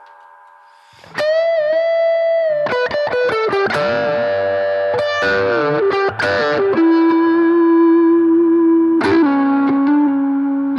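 Electric guitar played through a BOSS GT-1000 amp modeller into a Two Notes Cab M. After a quiet first second comes a held note, then a quick run of picked notes and bent notes, then long sustained notes with a slide down near the end.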